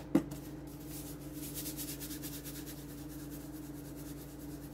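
Salt being added to a pot: faint, rapid scratchy ticking over a steady low hum, after a sharp click at the very start.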